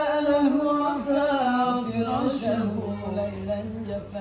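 Male voices singing an unaccompanied sholawat in long, drawn-out melismatic phrases. A second, lower voice joins beneath the lead about two seconds in.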